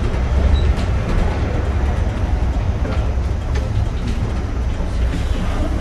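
Cabin noise aboard a Mercedes-Benz Türk O345G articulated city bus under way: a steady low rumble from its diesel engine and running gear.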